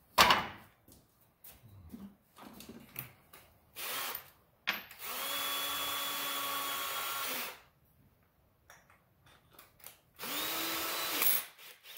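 Power drill fitted with a large hole saw, run briefly twice: a steady run of about two and a half seconds near the middle, then a shorter one near the end that rises in pitch as it spins up. A loud knock right at the start and a few clicks and handling knocks come between.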